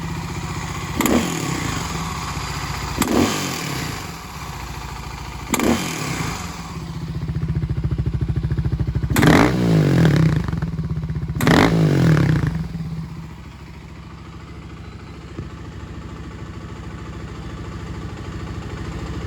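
Kawasaki KLX250S single-cylinder four-stroke engine, bored out to 351 cc, idling and snapped open from idle in five quick throttle blips, then settling back to a steady idle. Quick throttle from idle is where the owner hears an odd noise he is trying to identify.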